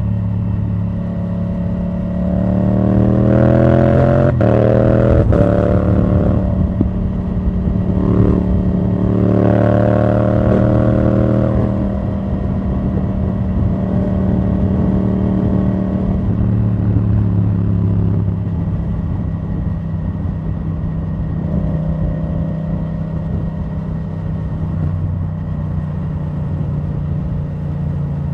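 2017 Yamaha MT-07's parallel-twin engine through an open Akrapovic titanium exhaust, accelerating hard with two sharp quickshifter upshifts about four and five seconds in. It pulls again a few seconds later, then eases off to steady cruising.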